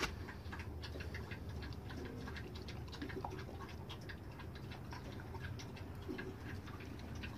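Small dog's claws clicking and tapping on a hard floor as it moves about: a fast, irregular run of light clicks.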